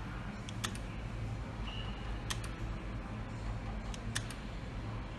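Merkur Triple Chance video slot machine playing a spin: a handful of sharp clicks, two close together about half a second in and two more around four seconds, with a short high electronic beep just before two seconds, over a steady low hum.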